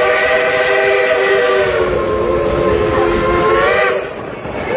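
Steam whistle of a coal-fired narrow-gauge 2-8-2 Mikado steam locomotive blowing one long chord of several tones that bends slightly in pitch and cuts off about four seconds in. The train's running rumble continues underneath.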